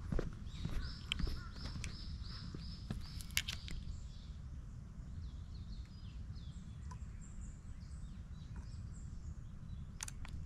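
A songbird singing a quick run of about eight alike high notes, then fainter scattered chirps, over a low steady rumble of wind on the microphone.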